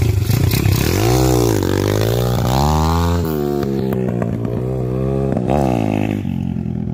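Apollo RFZ 150 dirt bike's single-cylinder four-stroke engine revving hard in repeated bursts. Its pitch climbs and falls about a second in, climbs higher around three seconds and drops off abruptly, then flares once more near the end.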